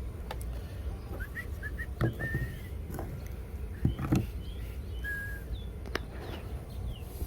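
Small birds chirping in short gliding notes, with a few sharp taps or knocks scattered through and a steady low rumble underneath.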